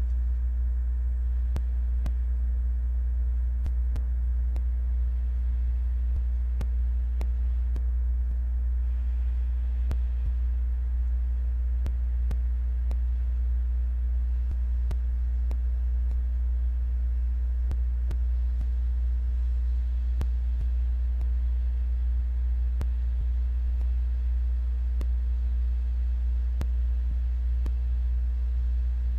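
Steady low electrical hum with a few fainter overtones, holding at one level, with faint ticks over it.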